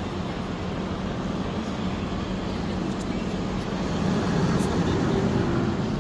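A steady low mechanical hum, growing a little louder about four seconds in, with people's voices underneath.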